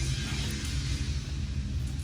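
Background music over a steady low hum.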